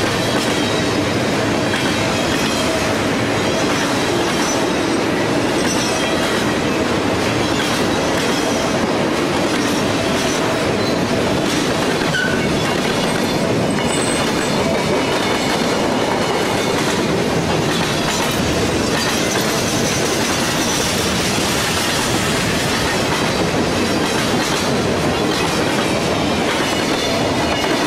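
Freight cars of a long mixed freight train rolling steadily past close by: a continuous rumble and clatter of steel wheels on the rails, with a faint high wheel squeal.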